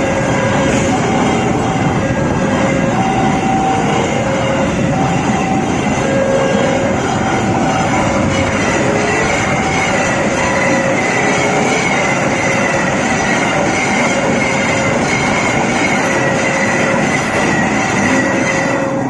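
A train running past, with dense rolling noise and a high, wavering squeal from the wheels. Short tones at a few pitches repeat over it.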